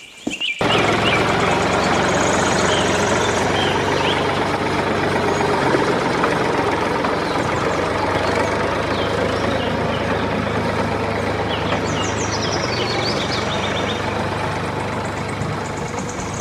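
An engine running steadily, cutting in suddenly about half a second in, with short high chirps scattered above it.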